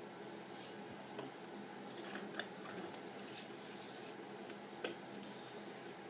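Faint scratching of a coloured pencil on paper, then the paper being shifted, with a few soft ticks over a steady low hum.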